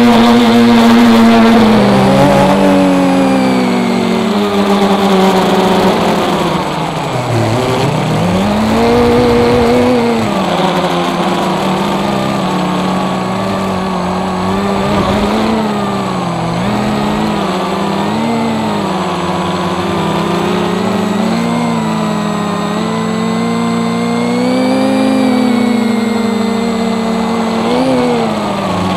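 FPV quadcopter's electric motors and propellers buzzing in flight, the pitch rising and falling constantly with the throttle. The pitch drops sharply about seven seconds in and climbs back, with smaller dips and rises through the rest.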